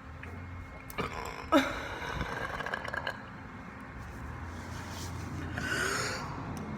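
A person burping: a short burp with a falling pitch about a second and a half in, then a breathy sound near the end.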